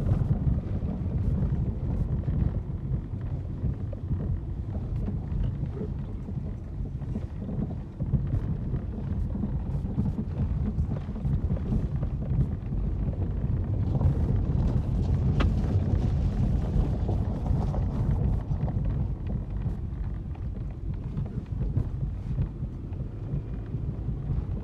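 Car driving along a road: a steady low rumble with scattered small knocks and rattles.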